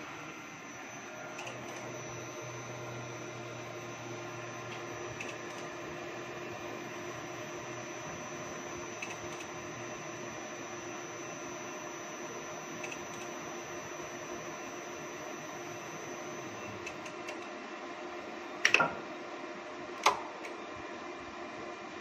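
Steady hum and high whine from a Monarch NICE3000 elevator controller cabinet, with faint ticks every few seconds. Near the end the whine stops, and two loud clacks follow about a second and a half apart.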